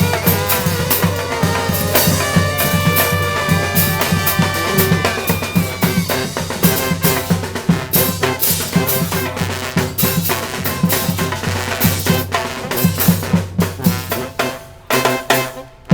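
Street band playing live: bass and snare drums beat out a steady rhythm, with horns holding long notes over them for the first several seconds. After that it is mostly drums, thinning out near the end.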